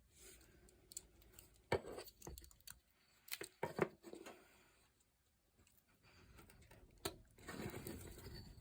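Swiss Army knife blade cutting basswood: a scattering of short, sharp clicks and crisp slicing cuts as chips come away, then a longer scraping cut near the end.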